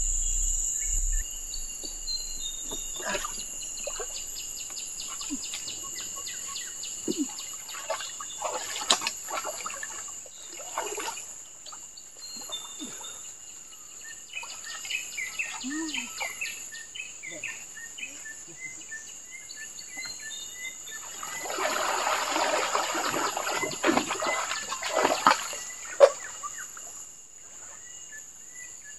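Riverside ambience: a steady high drone of insects with scattered bird chirps. A few seconds past the middle, water splashing for several seconds as a person swims and dives in the river.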